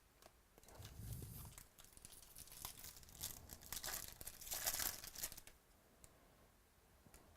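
Foil wrapper of a trading card pack being torn open and crinkled, a crackly rustle lasting a few seconds and loudest near the end before it stops.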